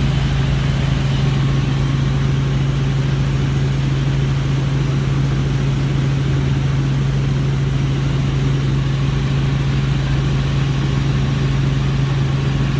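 Steady drone of a tour helicopter's engine and rotors in flight, heard from inside the cabin, with one strong low hum.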